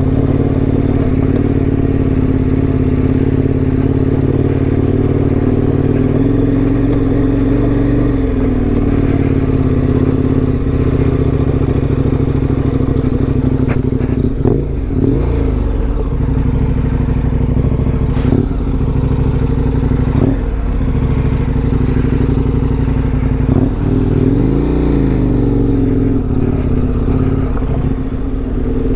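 KTM 1090 Adventure R's V-twin engine running under way, its note steady for the first half, then dipping and climbing back several times as the throttle is rolled off and on again. A few sharp knocks come through along the way.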